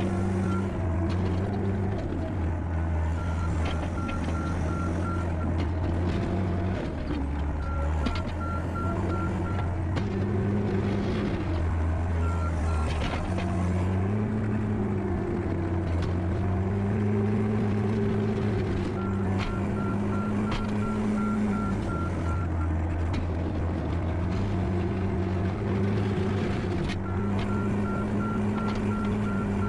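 John Deere skid steer's diesel engine running, its pitch rising and falling with the work of pushing snow with a snow bucket. A backup alarm beeps steadily in several separate spells, each lasting a few seconds, as the machine reverses.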